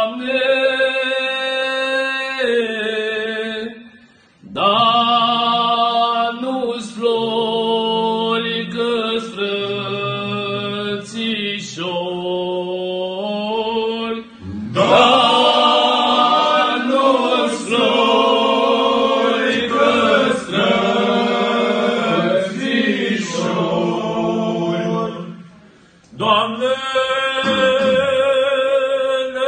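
A group of men singing a Romanian Christmas carol (colind) unaccompanied, in long drawn-out phrases over a steady held low note. The singing breaks off briefly about four seconds in and again near the end.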